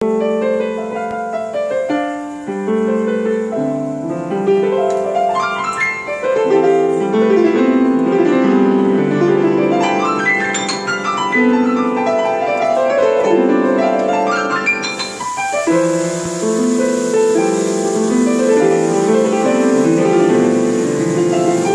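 Solo piano played live: a melody over held chords, notes ringing into one another. A faint hiss joins about fifteen seconds in.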